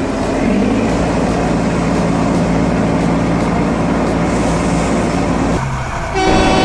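A heavy vehicle's engine running with a steady rumble. About six seconds in it drops briefly and gives way to a pitched, horn-like tone.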